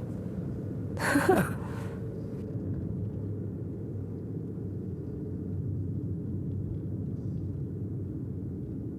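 Steady low rumble of a car on the move, as heard inside the cabin, with a brief voice about a second in.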